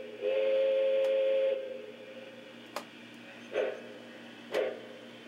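O scale Lionel model of a Pennsylvania Railroad K4s steam locomotive sounding its whistle for departure: one long, steady chord-like blast that stops about a second and a half in. A click and then two short sharp sounds about a second apart follow near the end.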